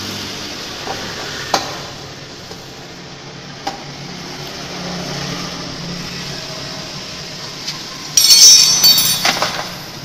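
Metal tools and parts clinking and knocking: a few separate sharp clicks, then a louder burst of metallic clatter about eight seconds in.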